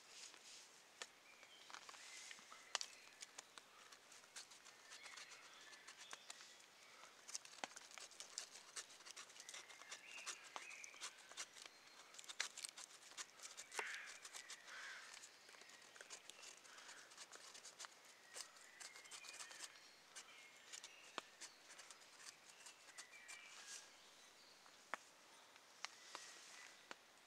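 Faint scraping of a fixed-blade knife shaving thin curls off split wood to make tinder, with many small, sharp ticks scattered throughout.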